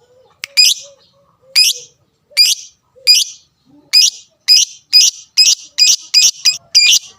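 A lovebird giving loud, shrill chirps, the excited calling of a 'fighter' bird. They come about one a second at first and quicken to about three a second from about four seconds in.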